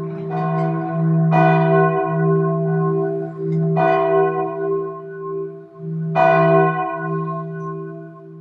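A single church bell tolling, struck four times about two and a half seconds apart, its deep hum ringing on steadily between strikes.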